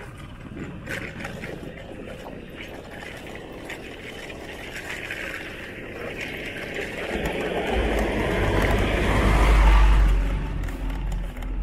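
A cargo truck approaching and driving past close by. Its engine and tyre noise builds over several seconds and peaks with a heavy low rumble as it passes, about ten seconds in, then drops away quickly.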